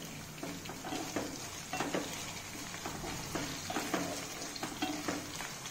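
Diced potatoes sizzling as they fry in hot oil in a non-stick kadai, stirred with a spatula that knocks and scrapes against the pan repeatedly, about twice a second.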